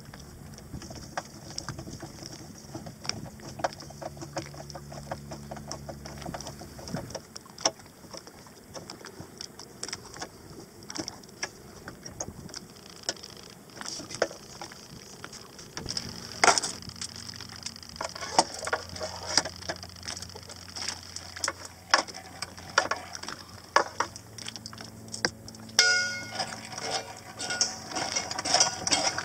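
Hand tools and metal fittings clicking and clinking while a boat's propane regulator is swapped out, the clinks growing busier and louder about halfway through, over a low steady hum.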